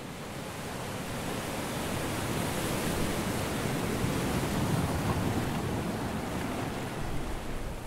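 Rushing wash of ocean surf, a steady noise with no music or voice, swelling toward the middle and easing off near the end.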